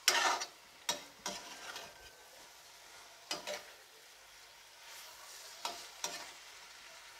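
Metal slotted spoon scraping and stirring fried potato and aubergine pieces through thick masala in an aluminium kadai, in several separate strokes, the loudest right at the start. A faint steady sizzle from the pan runs underneath.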